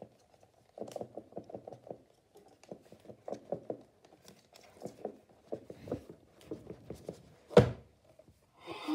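An iPad box being handled and opened by hand: rapid scratching, rustling and ticking of packaging, with one sharp knock about seven and a half seconds in.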